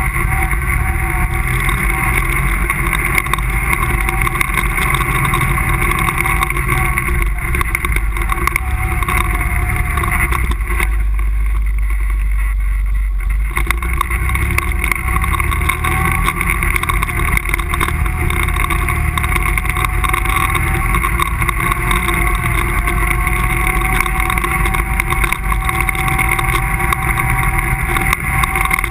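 ATV engine running steadily as the quad rides along a dirt trail, heard close up from the machine itself. About eleven seconds in it eases off for a couple of seconds, then picks up again.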